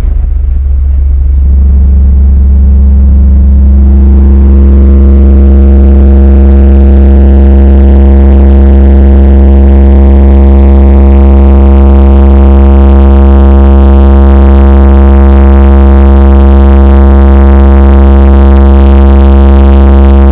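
A car audio subwoofer system playing one deep, steady bass tone at extreme competition level during a timed SPL (dB drag) run. A stack of higher overtones builds up over the first few seconds and then holds steady over the low tone.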